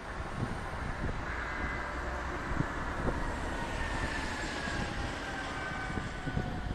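Tram running on the street, with a faint electric whine that falls slowly in pitch over a low rumble.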